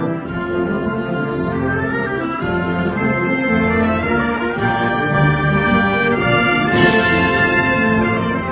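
Italian concert wind band of brass and woodwinds playing a symphonic march in sustained full chords. Four percussion crashes fall about every two seconds, the last the loudest.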